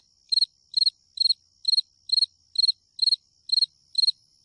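Crickets chirping in an even rhythm, a little over two chirps a second, over a faint steady high trill: a night-ambience sound effect.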